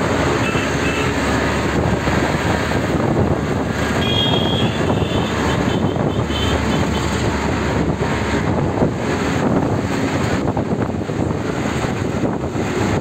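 Steady engine and road noise with rattling from a moving open-sided auto-rickshaw in city traffic. A few short high-pitched tones sound from about four seconds in.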